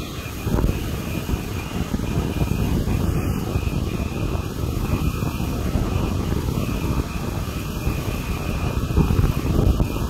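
Horizontal band sawmill running and cutting lengthwise through a log: a steady, loud mechanical drone, with a thin steady high tone above it.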